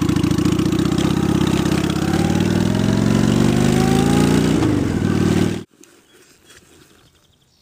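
2003 Honda Shadow 750's V-twin engine running under way, rising in pitch as it accelerates for a couple of seconds, then easing off. The engine sound stops abruptly a little past halfway, leaving only a faint quiet background.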